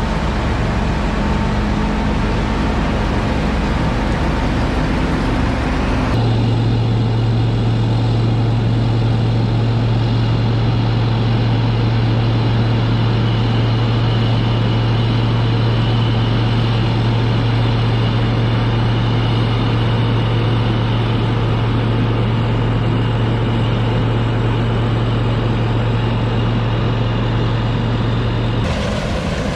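Heavy farm machinery engine running steadily. About six seconds in the sound switches abruptly to a strong, steady low hum, and it changes again near the end.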